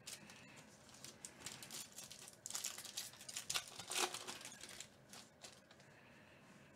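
Foil wrapper of a 2019 Topps Holiday baseball card pack being torn open and crinkled in the hands: a run of faint crackles, busiest a few seconds in and dying away near the end.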